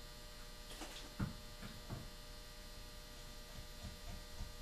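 Steady faint electrical hum with a few light knocks and taps from handling a small stain bottle and a wooden rifle stock on a cardboard-covered table, the sharpest about a second in and several small ones near the end.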